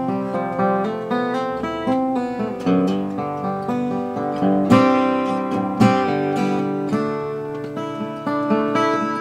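A 1945–46 Gibson LG-2 flat-top acoustic guitar played by hand: a steady run of picked notes and strummed chords, with two sharper strums about five and six seconds in.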